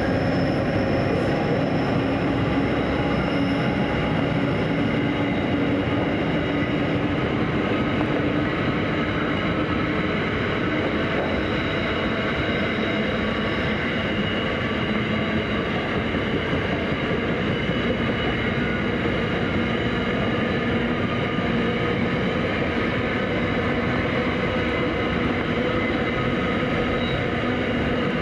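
Container freight train's wagons rolling steadily past: a continuous rumble of wheels on rail, with thin steady whining tones from the wheels over it.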